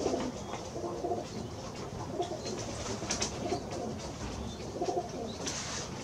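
Domestic pigeons cooing, low rounded coos repeating every second or so, with a couple of brief rushing noises in between.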